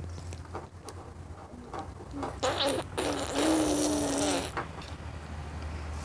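A baby gumming and sucking on an apple slice: scattered wet mouth clicks, then from about two and a half seconds in a wet, buzzing hum from the baby's mouth lasting about two seconds.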